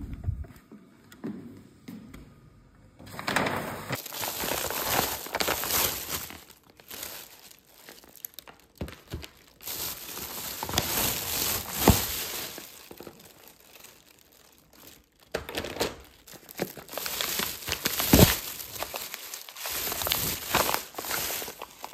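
A door latch clunks once at the very start. Then a thin plastic grocery bag rustles and crinkles on and off as packaged groceries are pulled out of it, with some sharper crackles and knocks.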